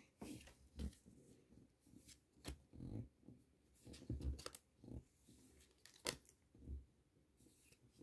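Pokémon trading cards being flipped through by hand and laid down on a playmat: faint, irregular soft clicks and slides of card against card.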